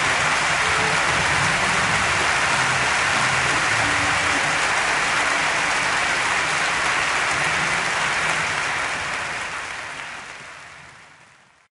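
Audience applauding steadily, fading out over the last few seconds and then cutting off.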